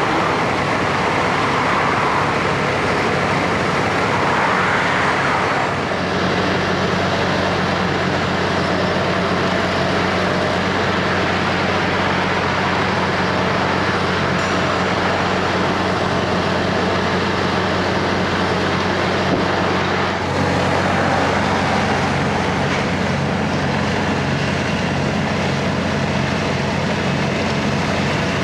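Heavy diesel engines of asphalt paving machinery running steadily, a low engine hum over broad machine noise that grows stronger about six seconds in.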